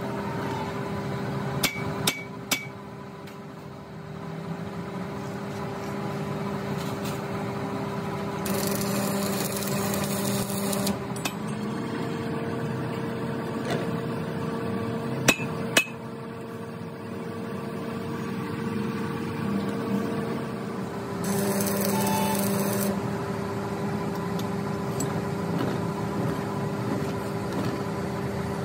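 Threads being cut by hand into the bolt holes of a steel axle hub with a T-handle tap wrench: metal clicks and clinks from the tool and workpiece, sharpest about two seconds in and again around fifteen seconds. A steady machine hum runs underneath, with two stretches of hiss partway through.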